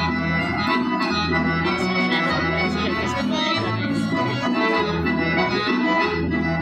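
Live folk-dance music from a small band with a double bass: a steady melody over a bass line that changes note about every half second.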